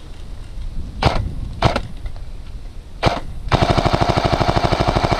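A&K PKM airsoft electric machine-gun replica firing: three single shots, then a long fully automatic burst from about three and a half seconds in, its fast, even rattle carrying a steady gearbox whine.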